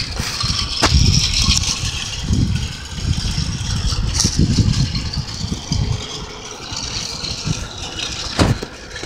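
Toy train running on a circular track, giving an uneven low rumbling rattle, with a sharp click about a second in and another near the end.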